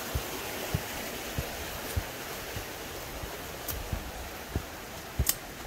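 Footsteps on a dirt trail: low thuds at a steady walking pace over a steady rush of flowing water that slowly fades, with a couple of sharp clicks near the end.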